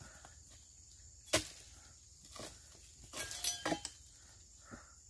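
A long-handled pruning chisel knocks sharply once into the base of an oil palm frond about a second and a half in. A short run of cracking and crackling follows around three and a half seconds in as the blade works into the frond.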